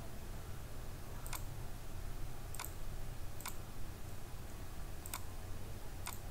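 Computer mouse clicking five times, about a second apart, over a low steady hum.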